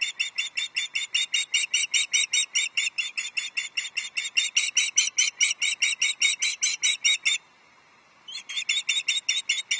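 Osprey calling a rapid, even series of high chirps, about four or five a second, with a one-second pause near the end before the calls start again. This is food-begging calling as the male flies in with a fish.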